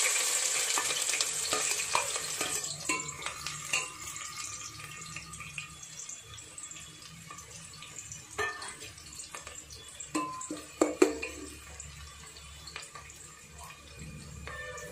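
Sliced onions dropped into hot oil in a metal pot: a loud sizzle that starts suddenly and slowly dies down, with a slotted spoon scraping and knocking against the pot as they are stirred. The sharpest knocks come about ten and eleven seconds in.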